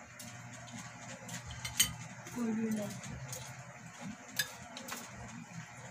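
Cutlery clinking against plates and serving dishes as food is taken at a dinner table, with a sharp clink about two seconds in and another near four and a half seconds. A brief voice sound comes about two and a half seconds in.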